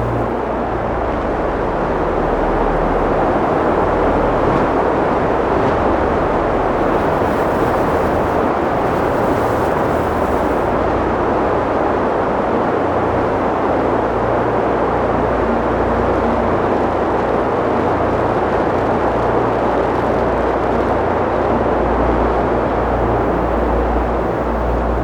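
Strong wind blowing steadily, with uneven low rumbling from gusts buffeting the microphone.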